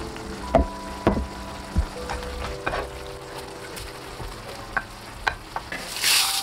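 A wooden spatula stirs a ground-beef mixture in a square pan on a portable gas stove, knocking against the pan several times, while the food sizzles in the pan. A louder burst of sizzle comes about six seconds in.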